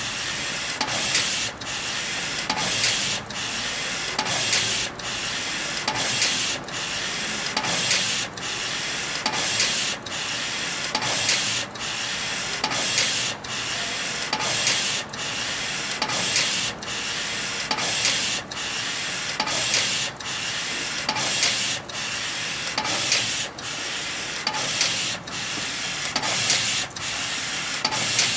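Digital inkjet T-shirt printer running: the print-head carriage shuttles back and forth across the garment in steady passes, a little under one a second. Each pass is an even whirring hiss, broken by a brief pause and a short louder tick as the carriage turns.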